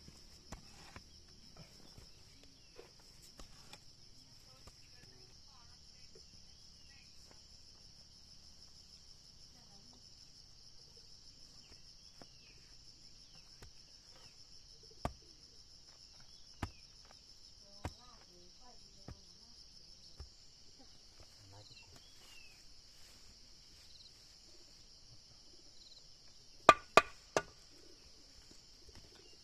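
Insects buzzing steadily at a high pitch, with a few single sharp knocks about a second apart in the middle and three louder knocks in quick succession near the end, from work on the wooden frame.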